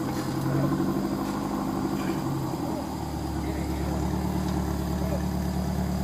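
Off-road 4x4's engine running steadily; its note changes about three seconds in and then settles into a lower, steady drone.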